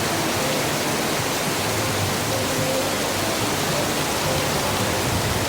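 Heavy tropical rain pouring down in a thunderstorm: a loud, steady hiss of the downpour.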